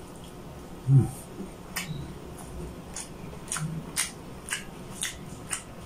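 Close-miked chewing of pork adobo and rice: wet mouth-smacking clicks, about two a second, with one louder, short low sound about a second in.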